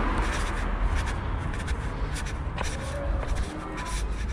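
Footsteps and rustling from people walking while carrying the camera, with irregular light knocks and shuffles over a steady low rumble on the microphone.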